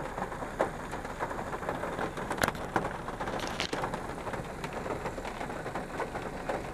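Rain falling on a car, heard from inside the cabin: a steady hiss with scattered ticks of drops striking the glass and body.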